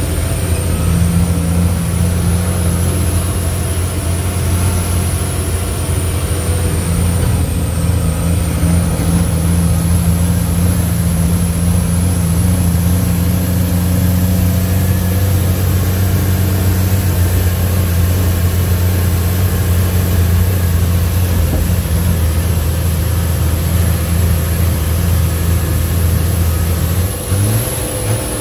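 Leyland truck's 411 engine running steadily under way, heard from inside the cab. Near the end there is a short break and then a change in the engine note.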